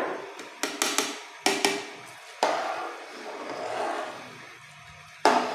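Metal spatula clanking against a large aluminium pot as rice is stirred into the spiced liquid. A handful of sharp knocks in the first two seconds, a longer swishing stir through the rice and liquid, then one more clank near the end.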